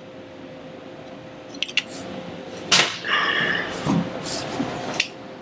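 A few sharp clicks and one louder knock about three seconds in, followed by a short scraping sound: tools and hardware being handled against a TV wall-mount bracket.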